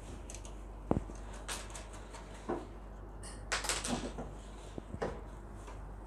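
Sharp click about a second in, then scattered clicks and light knocks as a replacement magnetron is handled and seated onto its mounting studs in a microwave oven's sheet-metal chassis, over a low steady hum.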